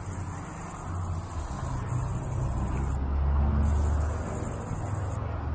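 Street traffic: a motor vehicle's low engine rumble swells as it passes, loudest about three and a half seconds in, then eases off.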